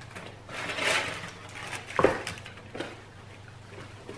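Tissue paper rustling and crinkling as it is pulled aside in a cardboard shoebox, with a sharp knock about two seconds in and a few lighter clicks as the shoes are handled.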